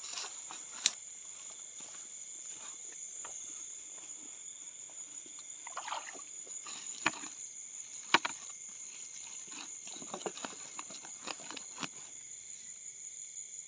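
Steady chorus of night insects chirring at several high pitches, with scattered rustles and sharp clicks of footsteps pushing through wet grass, the sharpest click about 8 seconds in.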